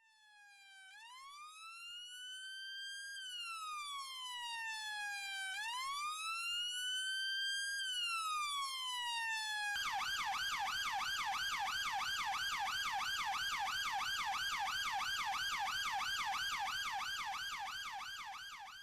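Electronic police siren, fading in on a slow rising and falling wail, then switching about ten seconds in to a fast repeating yelp before fading out.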